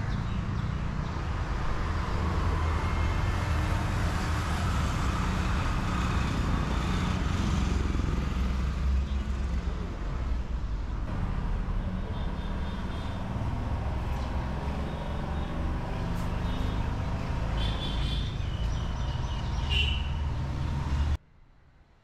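Road traffic noise from cars passing on a road, with a steady low rumble. It drops away sharply near the end.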